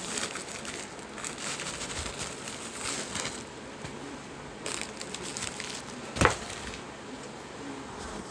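Plastic packaging and bubble wrap rustling and crinkling as items are handled, with one sharp knock about six seconds in.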